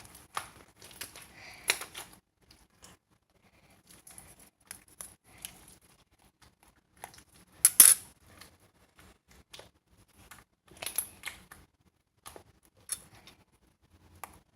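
Irregular small clicks, taps and rustles of objects being handled, with the loudest cluster of clicks about eight seconds in.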